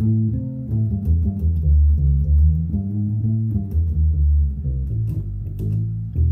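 Fender Precision electric bass played as a run of single plucked notes, several a second, stepping up and down in pitch.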